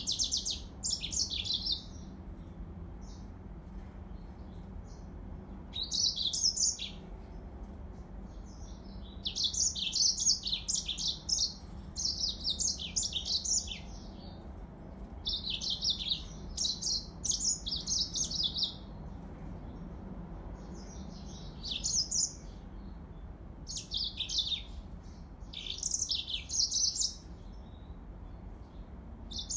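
Yellow-fronted canary (Serinus mozambicus) singing: bouts of fast, high twittering song, each a second to a few seconds long, repeated with short pauses between them over a faint low hum.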